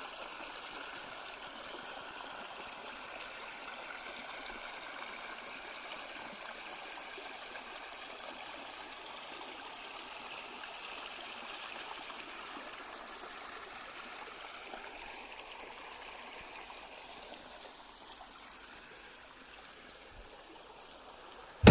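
Creek water flowing and babbling steadily, a constant rushing hiss that fades down near the end.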